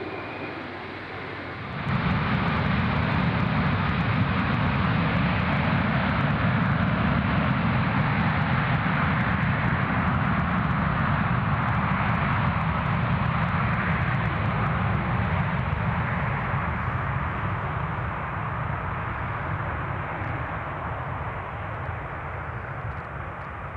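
Wide-body airliner's jet engines at takeoff power during the takeoff roll. The roar comes up suddenly about two seconds in, then slowly fades as the aircraft rolls away.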